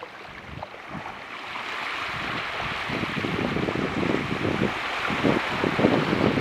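Surf washing onto the beach, the wash swelling over the first couple of seconds and then holding, with wind gusts buffeting the microphone.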